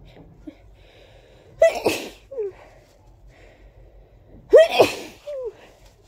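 A person sneezing: two big, wet sneezes about three seconds apart, each a sudden loud burst with a short falling vocal sound after it.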